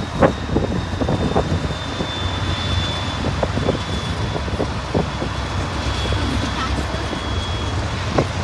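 Low steady rumble of a GE Dash 9 diesel freight locomotive close by, with scattered sharp clicks and a faint steady high tone over it.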